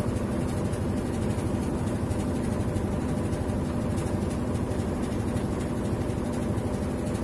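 Whirlpool White Magic Pro XL 800s washing machine spinning, a steady hum overlaid with a rapid 'kat kat kat' vibrating rattle. The rattle comes from a loose plastic bag inside the machine vibrating against it.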